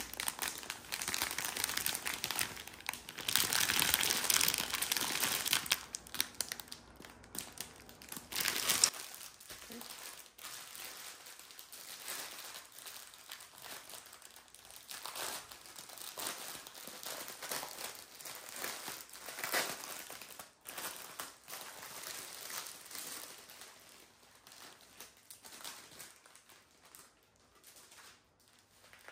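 Clear plastic wrapping around a bundle of diamond-painting drill bags crinkling as it is handled, loud and continuous for the first nine seconds or so, then quieter, scattered rustles.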